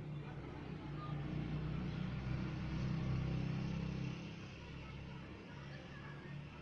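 Low engine rumble of a motor vehicle, swelling until about four seconds in and then fading.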